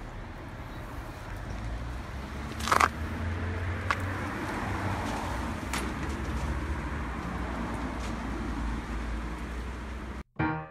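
Maruyama BHT600DR two-stroke engine hedge trimmer idling steadily while it lies on the ground, with a sharp click about three seconds in and two fainter ones after. The engine sound cuts off abruptly just before the end.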